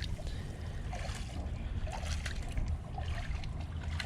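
Hands digging and scraping in wet creek mud and gravel, with faint small clicks and scrapes over a steady low rumble and the trickle of shallow creek water.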